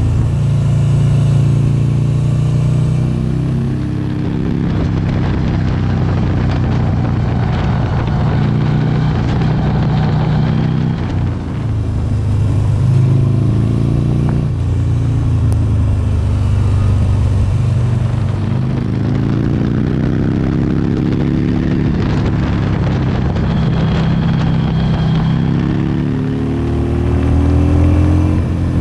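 A motorcycle engine running under way, its pitch climbing and falling several times as the throttle opens and closes through the bends, over a steady rush of wind and road noise.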